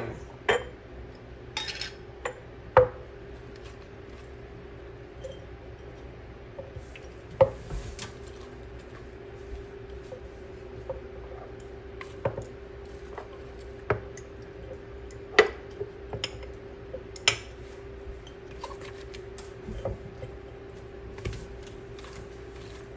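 Glass mason jars clinking and knocking on a wooden cutting board as cucumber and onion slices are packed into them by hand, in scattered sharp knocks every second or two over a steady low hum.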